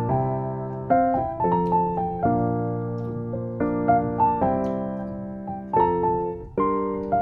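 Background piano music: a slow melody over chords, each note struck and fading away.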